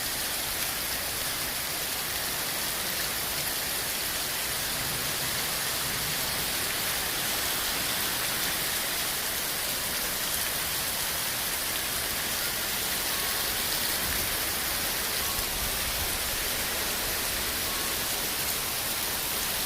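Heavy rain from a severe thunderstorm falling steadily as an even hiss.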